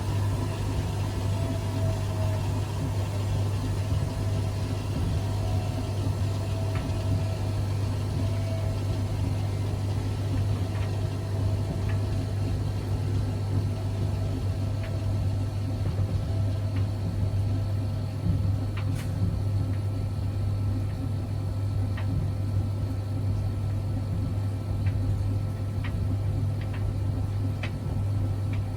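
Zanussi Jetsystem IZ16S washing machine running a quick wash: a steady low hum with a few faint clicks.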